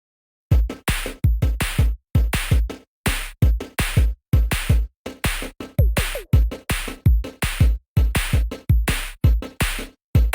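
Electronic music with a drum-machine beat, starting abruptly out of dead silence about half a second in and running on as a steady, regular beat.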